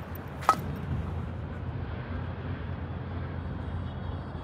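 Steady outdoor waterfront rumble of wind and distant city traffic. One short, sharp clack about half a second in is louder than everything else.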